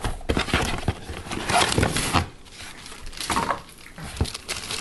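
Cardboard box and plastic-bagged parts rustling and scraping as a hand rummages in the box, in several irregular bursts with a couple of knocks.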